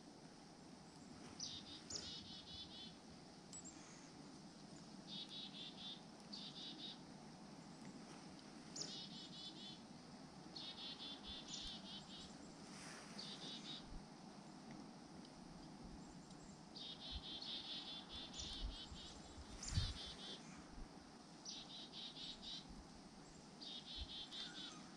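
Small birds giving short, buzzy, high-pitched calls in repeated bursts, mostly in pairs, over a faint steady outdoor background. One low thump about four-fifths of the way through.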